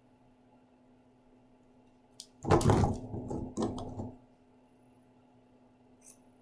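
Paper craft pieces handled and pressed down on a tabletop: a short burst of rustling and handling noise about two and a half seconds in, lasting under two seconds, in otherwise quiet room tone.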